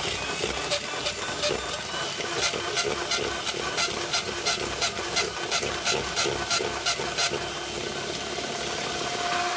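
Electric hand mixer running steadily at speed, its beaters whisking liquid cake batter in a plastic bowl, with frequent sharp clicks through the motor's whir.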